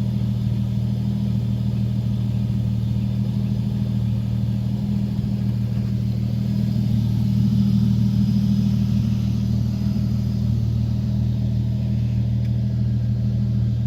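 Subaru SVX's 3.3-litre flat-six engine running steadily and smoothly, a little louder around the middle.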